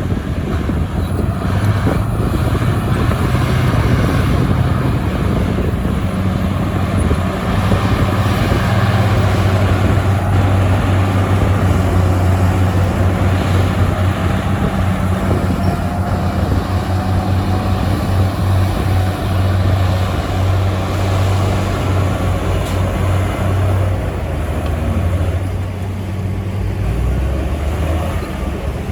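Heavy diesel engine of earthmoving machinery running steadily under load, with a deep, even engine note; the note drops lower near the end.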